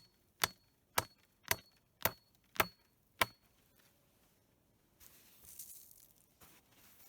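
A wooden stake being hammered into the ground: half a dozen sharp blows, about two a second, each with a brief ringing tone. The blows stop a little over three seconds in, followed by faint rustling.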